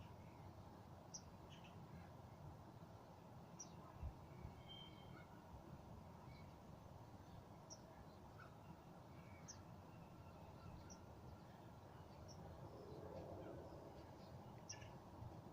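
Near silence: faint, short, high bird chirps scattered every second or so over a low steady background rumble.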